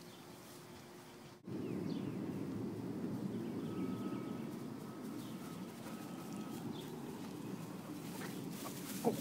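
Outdoor background noise: a steady rushing sound with faint bird chirps over it. It starts abruptly about a second and a half in, after a quieter stretch with a low steady hum.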